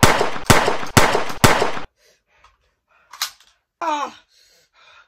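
Rapid gunfire, about two shots a second, four sharp shots that stop abruptly; about four seconds in, a short pained groan falling in pitch as if from someone who has been shot.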